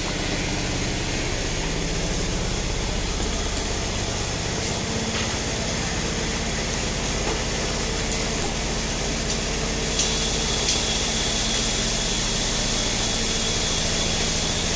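Steady engine-like machine drone, with a few light clicks; a steady hiss comes in about ten seconds in.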